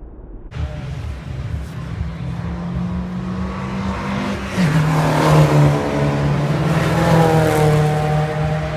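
Race car engine running hard and passing, loudest in the middle. The pitch steps down once about halfway, and the tones slide lower near the end as it goes by.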